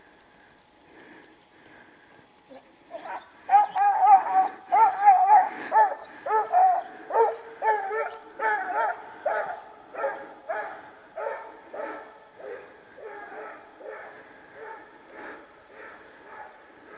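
A scent hound baying on a hare, in a rapid series of wavering, yelping cries about two a second. The cries start about three seconds in, are loudest at first, and fade steadily as they go on.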